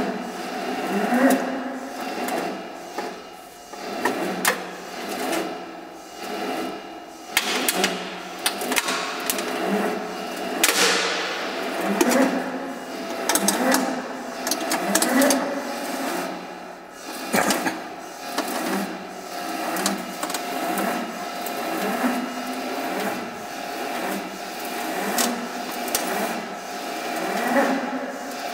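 Downspout roll forming machine running: a rhythmic mechanical clatter that swells about every second and a half, with a few sharp clanks. About ten seconds in, one clank is followed by a falling hiss.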